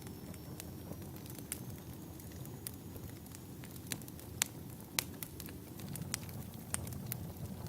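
Log fire burning in a fireplace: a steady low rumble of flames with scattered sharp crackles and pops, the loudest a couple of pops a little past the middle.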